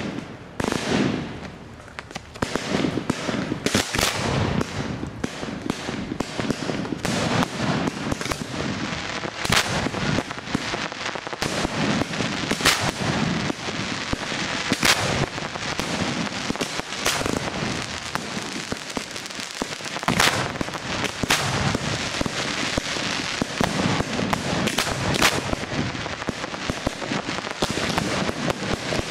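Fireworks going off in quick succession: many sharp bangs over continuous crackling, with a brief lull about a second in.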